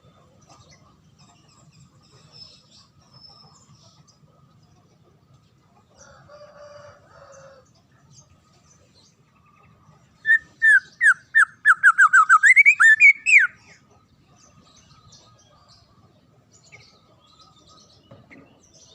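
Songbird calling: a quick run of about a dozen loud, clear whistled notes, each sliding down in pitch, lasting about three seconds in the middle, with the last notes climbing higher. Faint, scattered chirps of other birds are heard around it.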